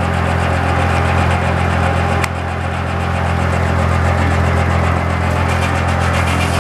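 1930s-style circular sawmill running: a steady low drone from its drive and the big spinning saw blade as a log is fed toward the blade. A single sharp click about two seconds in.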